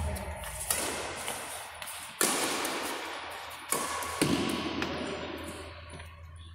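Badminton rackets striking a shuttlecock in a rally: four sharp hits, the last two close together, each ringing out with a long echo.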